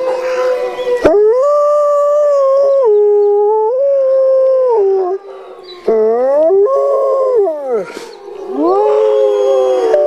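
Wolf howling: a run of long, loud howls, each held and stepping up and down in pitch, with short breaks about five and eight seconds in. A sharp click sounds about a second in.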